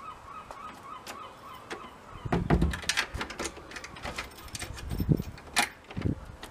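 A glazed back door being pushed shut and its handle and lock worked: two heavy thuds and a string of sharp clicks and rattles, starting about two seconds in.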